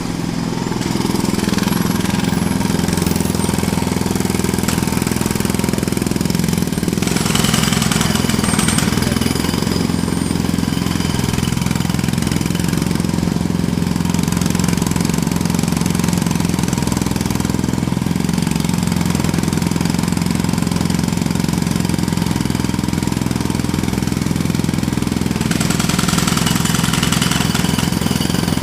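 Jackhammer hammering continuously, with an engine running under it. The hammering turns harsher and brighter about seven seconds in, and again near the end.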